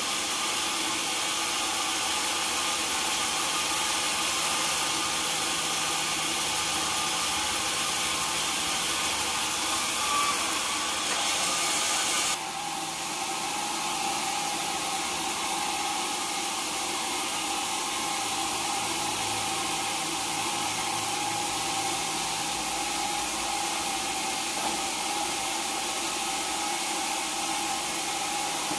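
Sawmill machinery running steadily, a hissing mechanical noise with a few held tones. About twelve seconds in the hiss drops a little, and it carries on evenly after that.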